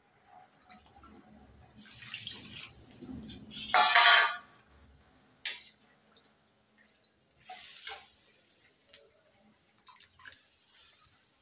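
Liquid poured from a steel bowl into a steel kadai of curry, with a loud splash and metallic clink about four seconds in. After that come occasional clinks and knocks of the steel ladle and bowl against the pan.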